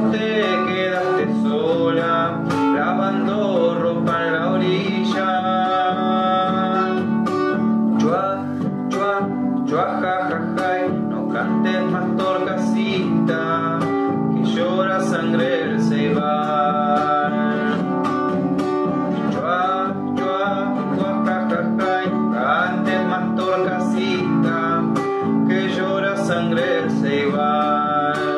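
Acoustic guitar playing an instrumental passage of a slow folk song, with no sung lyrics.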